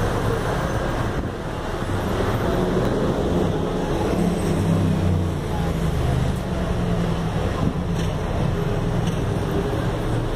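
Steady city traffic and road noise heard from the open top deck of a moving double-decker tour bus, with the bus's engine hum growing stronger around the middle.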